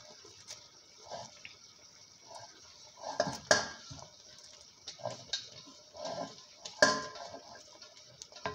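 Spatula scraping ground chicken off a steel plate, with wet clumps dropping into a pot of liquid dal. Irregular scrapes, clacks and splashes, loudest about three and a half seconds in and again near seven seconds.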